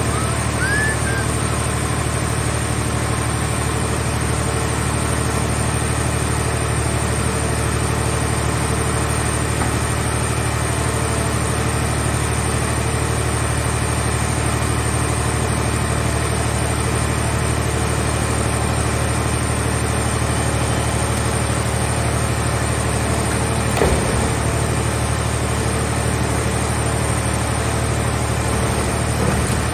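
The engine of a scrap car shell baler running steadily at a constant speed, with a faint high steady whine above it and a single short knock about three-quarters of the way through.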